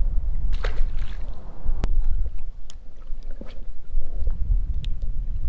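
Wind buffeting the microphone, a steady low rumble, with a few sharp clicks scattered through it.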